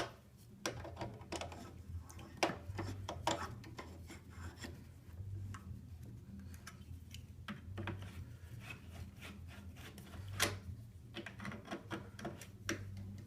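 Irregular clicks and knocks with rubbing in between as a Herman Miller Aeron office chair is handled during reassembly after a tilt-mechanism repair. The sharpest knocks come about half a second, two and a half, three and ten seconds in.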